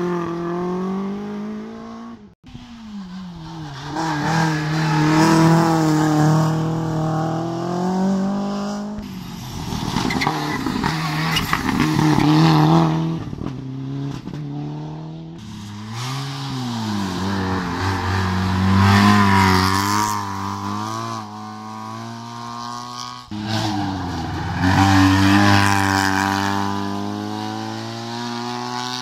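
Small race car engines revving hard through tight slalom bends, several cars in turn. Each engine note climbs under acceleration and drops away abruptly at each lift off the throttle or gear change.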